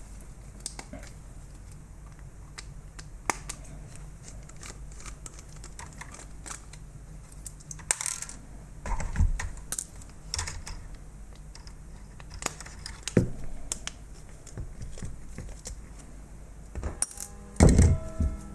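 Hand disassembly of a plastic robot vacuum cleaner: screws being undone and small parts handled, giving scattered light clicks and taps, with a louder knock near the end.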